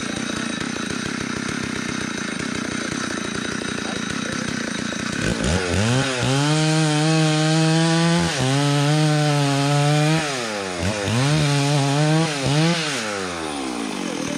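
Chainsaw engine: a low steady drone at first, then about five seconds in it revs up sharply and is held at high speed for several seconds, dips twice, is revved twice more briefly and then falls back and fades near the end.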